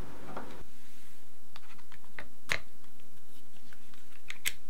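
Small plastic clicks and taps from hands handling a GoPro Hero5 Black camera, working its latch or door, scattered irregularly over a few seconds.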